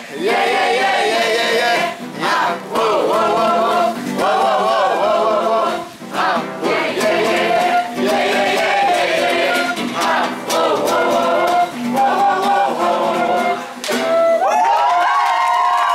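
A group of voices singing a song together, 'ié ié', in short phrases that break about every two seconds, rising into a long held note near the end.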